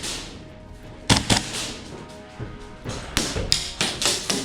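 Sharp, echoing shots from airsoft gas blowback rifles. Two shots come about a second in, then a quicker string of four or five near the end.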